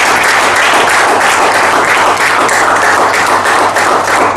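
Audience applauding steadily with many hands clapping, under a low electrical hum from the hall's sound system.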